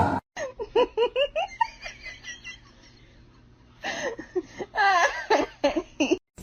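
A person laughing in two bouts of quick, rhythmic giggles.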